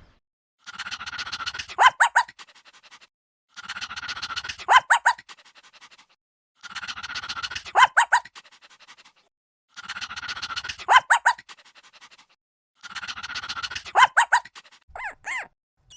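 An animal call repeated five times at even intervals of about three seconds, each time identical: a rough, breathy stretch of about a second ending in three sharp, high calls.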